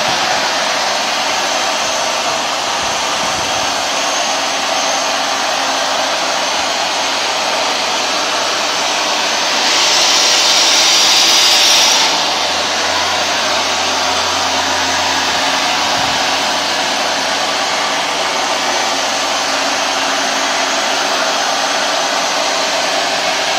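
Hoover Dual Power Max carpet washer running steadily, its suction motor whirring with a rushing air noise. About ten seconds in it turns louder and hissier for about two seconds, then settles back.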